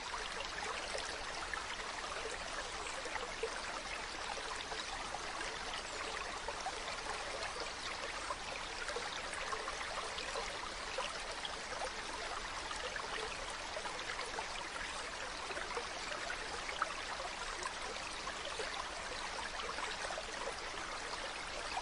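Mountain stream running over rocks: a steady rushing with fine splashing and gurgling throughout.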